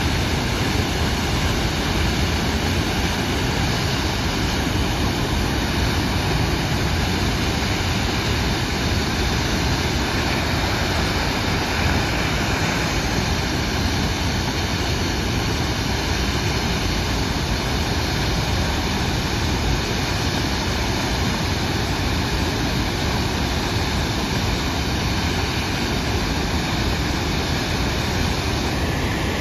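Tahquamenon Upper Falls, a wide, heavy sheet of tannin-brown river water, pouring over its ledge into the pool below: a loud, steady, unbroken rush of falling water.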